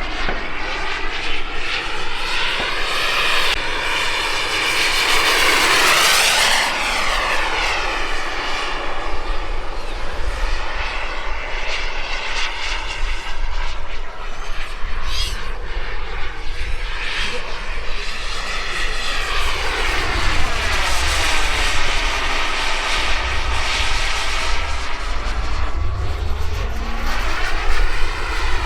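Starfire RC jet's model turbine engine whining as the jet makes fly-by passes, its pitch sweeping up and then down as it comes past. It is loudest about six seconds in, and it swells again in the last third.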